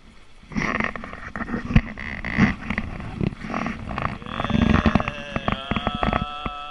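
Rushing wind and water noise on a camera microphone at a sailboat's bow, with knocks and brief voices. About four seconds in, a steady multi-tone hum with rapid clicks joins it.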